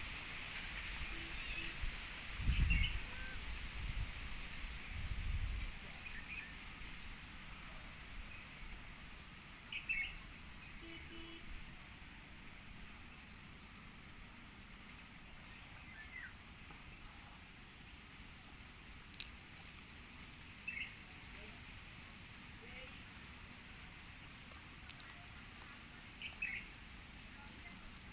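Outdoor ambience of small birds giving short, scattered chirps every few seconds over a steady hiss, with two brief low rumbles in the first few seconds.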